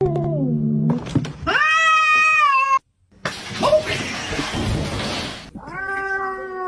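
Domestic cat meowing: a short falling meow, then a long drawn-out meow that cuts off suddenly, and another drawn-out meow near the end. Between them is a couple of seconds of steady hiss-like noise.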